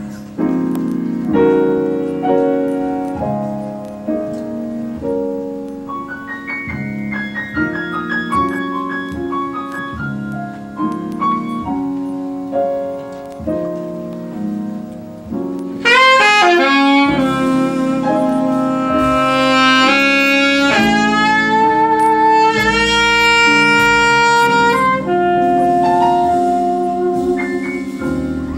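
Live jazz: a piano plays alone for about the first sixteen seconds, then an alto saxophone comes in over it with a quick rising run into long held notes.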